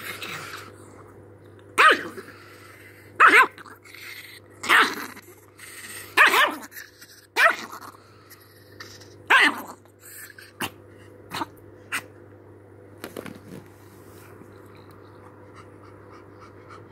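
Chihuahua barking in play at a teasing hand: about six loud, sharp barks roughly every second and a half, then a few shorter, quieter ones. A steady low hum runs underneath.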